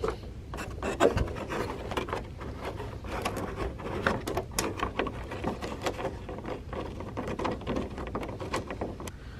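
Hand-tool work bolting a carbon fiber side skirt extension onto a car's side skirt: irregular clicks, taps and rubbing of the tool, bolts and parts, with no steady rhythm.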